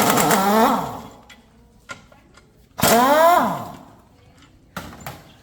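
A handheld power tool run in two short bursts, about three seconds apart, its pitch rising as it spins up and falling as it winds down; the first burst has a fast rattle. A few light clicks follow near the end.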